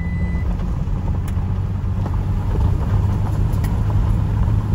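Car driving, heard from inside the cabin: a steady low rumble of engine and tyre noise, with a few faint clicks.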